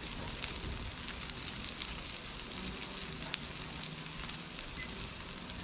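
Crab cakes topped with Swiss cheese sizzling and crackling in a frying pan on a portable gas stove, with one sharper pop a little past the middle.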